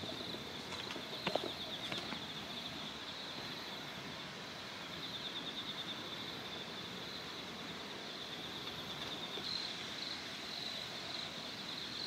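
Quiet countryside ambience: a steady high, pulsing chirring trill over a soft even hiss of shallow flowing water, with one brief click about a second in.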